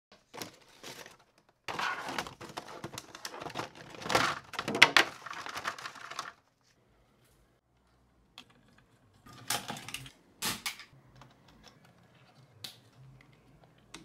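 Handling noise as a small microphone's boxed packaging is opened: rapid crackly rustling and clicking for a few seconds, a sudden silence of about two seconds, then a few short clatters and small clicks.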